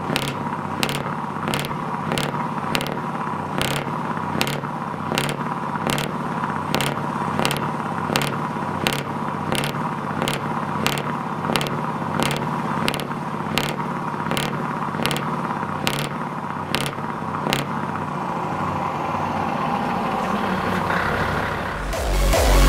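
Heavy diesel truck engine idling with a steady hum, crossed by a sharp click about twice a second that stops about eighteen seconds in. The engine sound swells slightly near the end.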